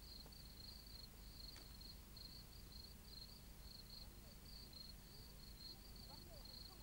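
Near silence with faint crickets chirping in a steady, evenly pulsing high trill.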